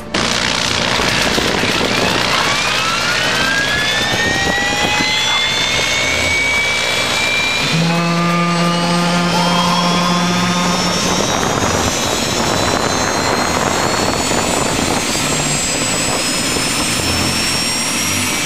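Bell 206 helicopter's Allison 250 turbine engine spooling up on the ground, its whine rising steadily in pitch as the rotor begins to turn. Partway through, a steady low buzzing tone sounds for about three seconds.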